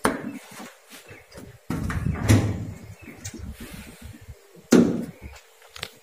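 Hinged metal door of an electrical control panel cabinet being unlatched by its handle and swung open: a click at the start, then knocks and rattles of the sheet-metal door, loudest about two seconds in and again near the end.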